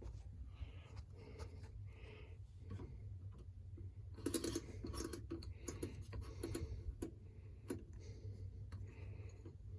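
Faint scattered clicks and short rustling handling noises, a little busier about four seconds in, as the washing machine is readied by hand.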